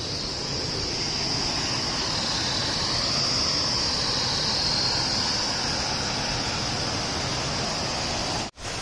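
Steady rushing of a river running close by, with a high, even hiss laid over it; the sound cuts out for an instant near the end.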